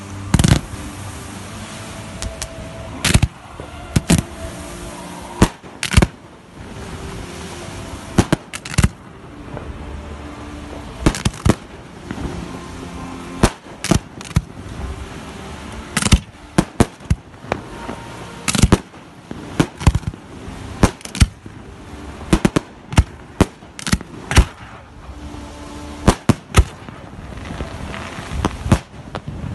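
Professional fireworks display going off: a long run of sharp bangs at irregular intervals, several in quick clusters, with crackle between them.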